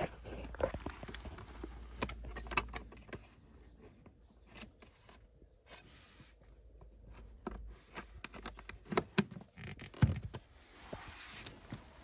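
Handling noise: scattered small clicks and scrapes, with a few sharper knocks about nine and ten seconds in.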